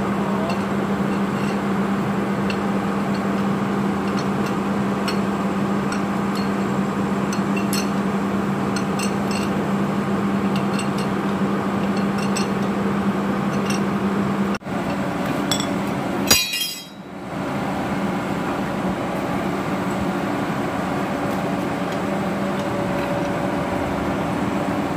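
Scattered light metallic clinks of hand tools, a long wrench bar and a pry bar, on the cast housing of a JCB 3CX backhoe loader's axle as it is unbolted and pried apart to reach the brake linings. A steady mechanical hum runs underneath. The sound drops out briefly, with one sharp click, about two-thirds of the way through.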